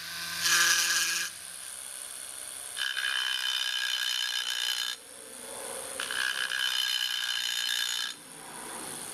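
Rotary tool spinning a carbide burr against an aluminium engine case, cutting the boost port: a steady high whine that gets louder in three stretches as the burr bites, at the start, from about three to five seconds in, and from about six to eight seconds in.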